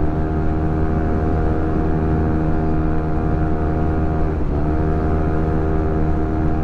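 Yamaha Gravis 125 scooter's single-cylinder engine breathing through an aftermarket JVT power pipe, held at high, steady revs at its top speed of about 115 km/h. The revs dip briefly about four seconds in and climb straight back.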